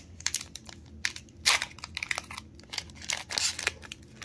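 Foil wrapper of a Pokémon Sword and Shield booster pack being torn open and crinkled by hand, in irregular crackles, the loudest about a second and a half in.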